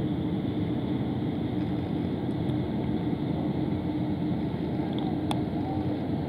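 Steady low drone of a general cargo ship's engines and machinery, with a constant hum running through it. A single brief click about five seconds in.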